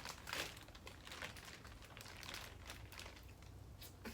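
Faint plastic crinkling and rustling from handling seafood-boil food, with a few soft scattered crunches.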